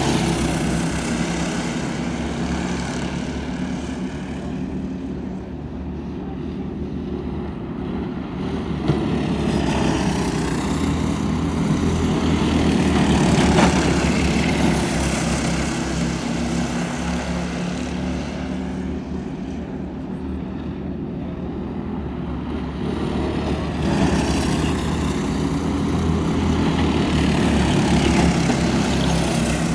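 Several dirt-oval racing go-karts' small engines running at speed, swelling and fading as the pack laps the track, loudest about halfway through and again near the end.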